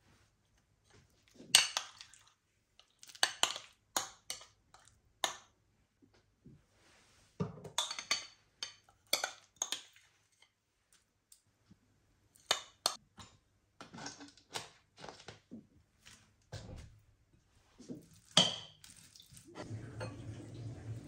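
A metal spoon and fork clinking and scraping against ceramic bowls in irregular bursts while creamy dressing is scooped onto pasta and the salad is mixed.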